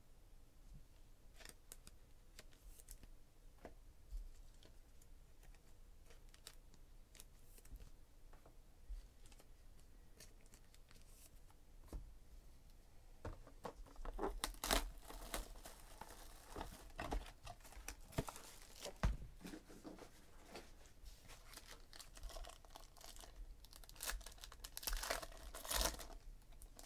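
Plastic wrapping being torn off a trading-card box and crinkled as it is handled, in dense crackly bursts that start about halfway through. Before that there are only faint light handling clicks.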